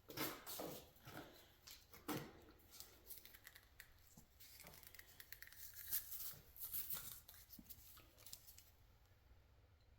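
Faint, intermittent tearing and scraping as the outer sheathing is stripped off Romex electrical cable, with light clicks and rustles of the wire being handled.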